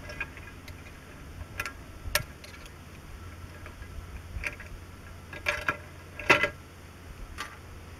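Scattered light metallic clicks and clinks as the steel parts of a tractor clutch pressure plate are handled on a steel workbench, the sharpest a little after six seconds in, over a faint low hum.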